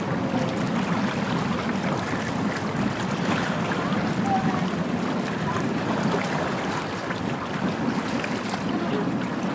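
Wind buffeting the microphone over choppy harbour water: a steady, gusty rush with a low rumble underneath.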